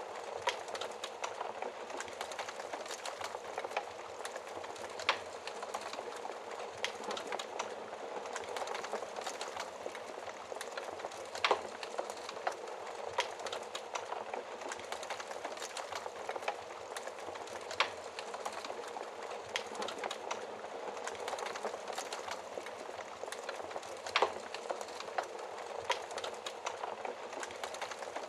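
Wood fire crackling steadily, with sharp louder pops every few seconds.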